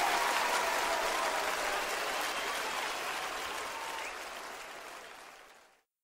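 Large concert audience applauding. The applause fades out over the last couple of seconds and cuts off to silence just before the end.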